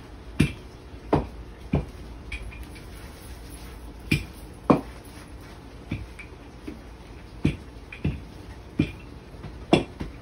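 Dough for chicken and dumplings being kneaded and pressed on a floured wooden board, making about a dozen irregular thumps. Some of the thumps come in quick runs of two or three.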